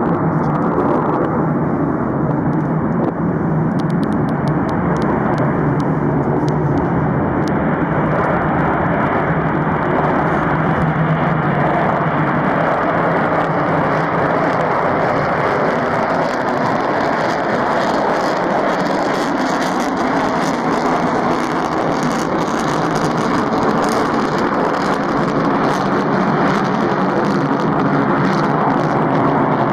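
Rockwell B-1B Lancer's four afterburning turbofan engines running at full afterburner through the takeoff roll and climb-out: a loud, steady jet roar. A rough crackle builds from a few seconds in and is strongest in the second half.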